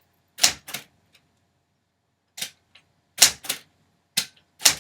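Typewriter clacking: about seven sharp strikes at an uneven pace, two or three of them in quick pairs.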